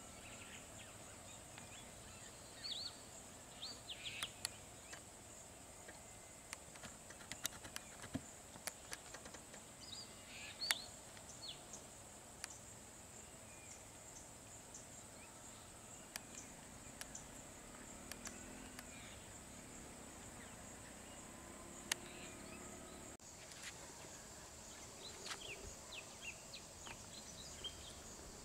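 Faint outdoor wildlife ambience: a steady high-pitched insect drone with scattered short bird chirps and a few sharp clicks, broken by an abrupt change in the background about three-quarters of the way through.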